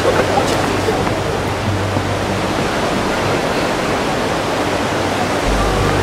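Large waterfall rushing: a loud, steady roar of falling water.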